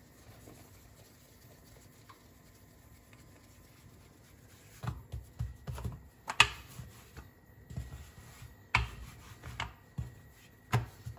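Hands working pieces of bun dough on a work surface: irregular soft knocks and taps, starting about five seconds in, after a few seconds of quiet.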